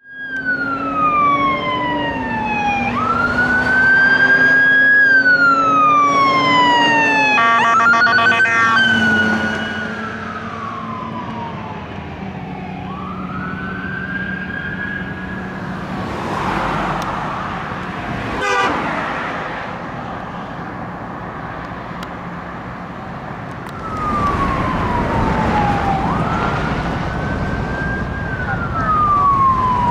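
Fire-rescue vehicle sirens sounding a wail, the pitch sweeping slowly down and up over and over. There is a short rapid pulsing passage about eight seconds in and a quick warble around eighteen seconds, over traffic noise.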